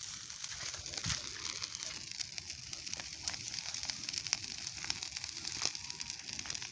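Large bonfire burning, the wood crackling with frequent sharp pops over a steady hiss.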